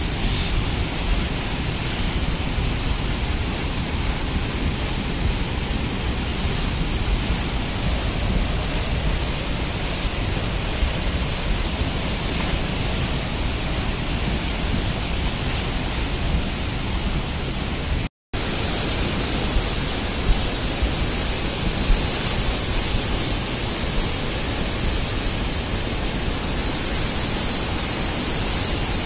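Floodwater of a swollen mountain stream rushing in flash flood: a steady, dense rushing noise. It drops out for an instant about two-thirds of the way through, then goes on as before.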